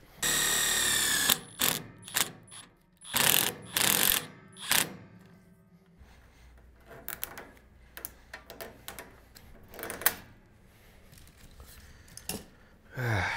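Cordless drill with a socket extension driving a bolt: one steady whining run of about a second, then several shorter bursts over the next few seconds. After that only quieter clicks and handling noises.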